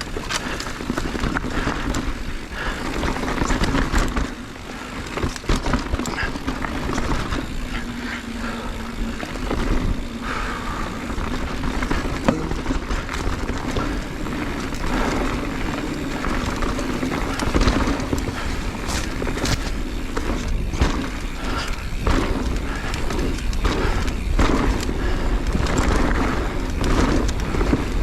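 Mountain bike riding fast down a rocky trail: tyres rolling over rock and dirt, with frequent knocks and rattles from the bike, over a constant low rumble of wind on the microphone.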